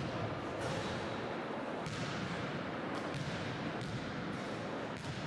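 Basketball impacts in a large echoing sports hall: sharp thuds about once a second over a steady wash of hall noise.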